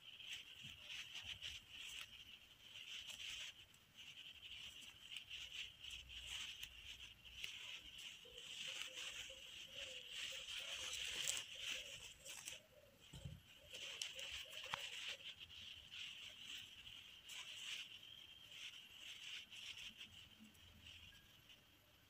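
Faint rustling and light clicks of fabric and thread handled while a steel crochet hook stitches a crocheted collar onto cloth, over a steady high-pitched background hiss. A faint wavering hum comes in for several seconds in the middle.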